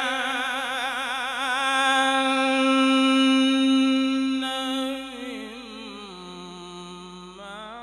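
Unaccompanied male voice in melodic Qur'an recitation, holding one long drawn-out note with a wavering vibrato. About five seconds in it steps down to a lower, quieter phrase that slides between pitches.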